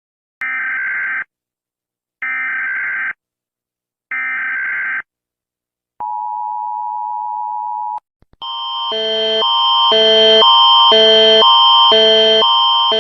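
Emergency Alert System alarm: three short bursts of digital data tones about a second apart, the SAME header that opens an EAS alert. Then comes a steady two-second two-tone attention signal. About eight seconds in, a loud alert pattern of alternating chords starts, about four changes a second, swelling in level.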